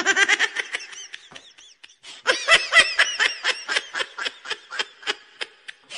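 High-pitched laughter: a rapid string of 'ha' sounds that breaks off briefly about a second and a half in, picks up again and trails off near the end.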